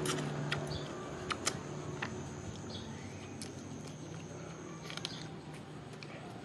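Quiet outdoor background with a thin, steady, high insect drone that stops about five seconds in. Scattered sharp small clicks run through it.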